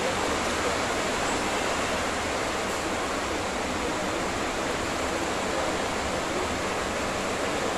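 A steady, even hiss of background noise.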